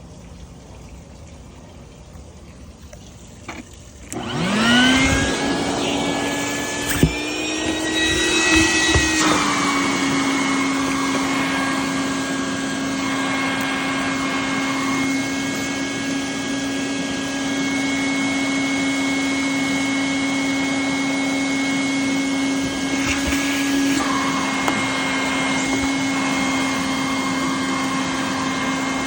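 Stinger shop vac switched on about four seconds in, its motor spinning up with a rising whine and then running steadily with the hiss of suction. The motor pitch drops a little about nine seconds in, and the suction sound shifts a few times as it vacuums.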